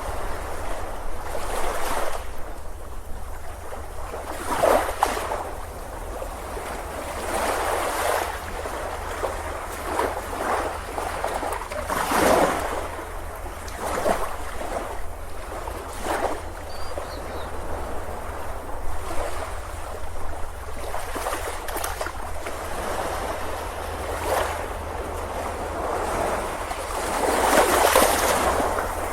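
Ocean waves breaking and washing up on a beach, a steady rush of surf that swells every few seconds.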